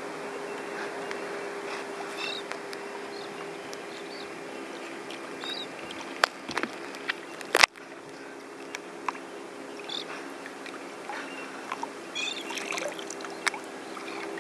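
Small waves lapping and trickling against a kayak hull, with scattered drips and clicks and one sharp knock about halfway through. A steady low hum runs underneath.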